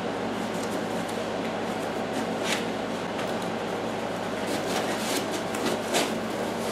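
Foam packing inserts being pulled out of a cardboard box: soft scrapes and rustles of foam against foam and cardboard, a few short sharper scuffs, over a steady background hiss.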